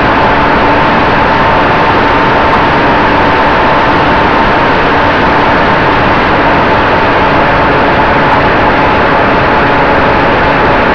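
Radio-controlled Cessna 188 model in flight, heard from a camera on its tail: the motor and propeller give a steady droning tone under loud, even rush of air over the microphone.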